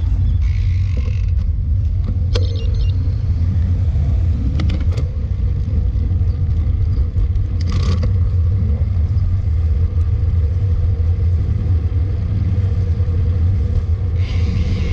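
Steady low rumble of wind and road noise on the microphone of a moving road bicycle, starting suddenly, with a few brief clicks and rattles.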